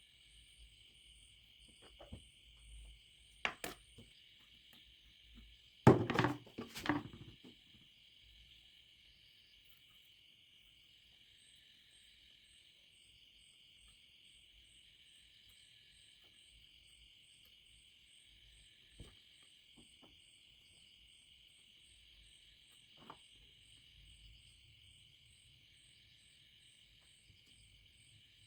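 A few sharp knocks and clicks of small objects handled on a work surface, the loudest cluster about six seconds in, over a steady faint high-pitched hiss.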